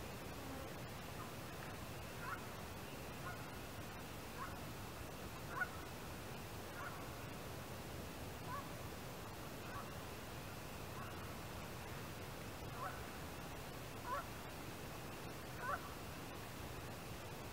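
A goose honking over and over, faint single calls about once a second, over a low rush of wind.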